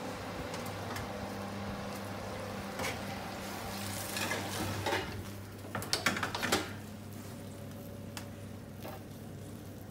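A roasting tray holding a turkey is taken out of a hot oven. Metal clatters and scrapes, with a few sharp knocks about four and six seconds in, over fat sizzling in the tray and a steady low hum.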